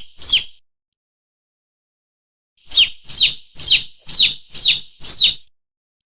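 Lure call for mongoose and monitor lizard: sharp, high-pitched bird-like squeaks, each sliding downward. One squeak comes right at the start, then after a two-second gap a run of six comes at about two a second, with dead silence between runs.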